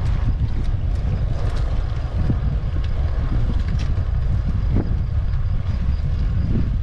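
Wind buffeting the microphone while riding a bike: a steady low rumble with hiss, and scattered faint clicks.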